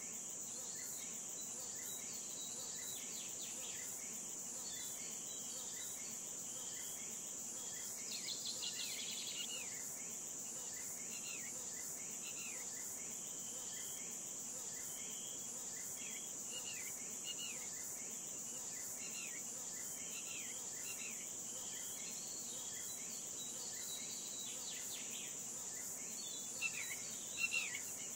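Steady high-pitched trilling of crickets in an insect chorus, with a bird giving short falling chirps about once a second. The chirps grow louder near the end.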